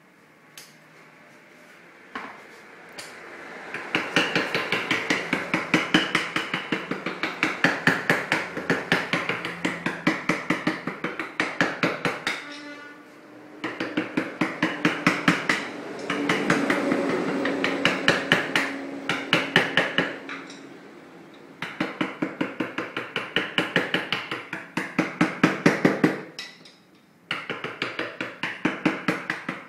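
Fast, even hammer-like tapping, several hard strikes a second, in long runs with short pauses about 12, 20, and 26 seconds in.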